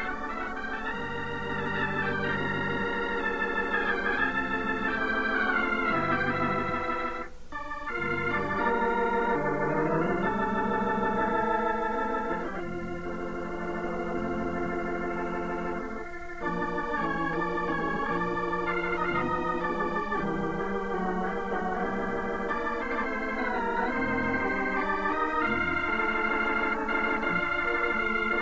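Organ music: sustained chords under a moving melody line, breaking off briefly twice.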